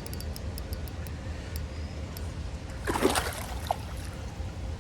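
Creek water running steadily, with a loud splash about three seconds in from a hooked brown trout thrashing at the surface. A few faint clicks come in the first second.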